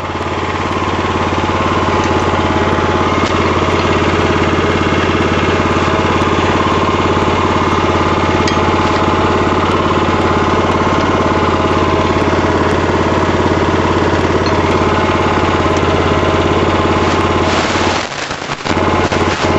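The small engine of a Burro walk-behind forklift running steadily with a rapid, even beat. It picks up over the first couple of seconds and drops off briefly near the end.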